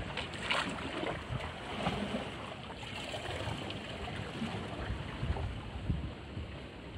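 Seawater lapping and sloshing against shoreline boulders, with low wind buffeting on the microphone.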